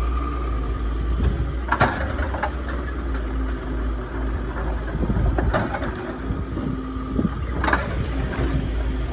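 Excavator's diesel engine running steadily with a low hum, and a few sharp knocks from the hydraulic breaker attachment.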